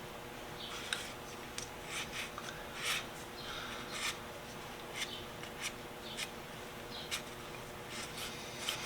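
Faint, irregular rubbing strokes and light ticks of thick paste stain being worked onto sanded wooden screwdriver handles, over a steady faint hum.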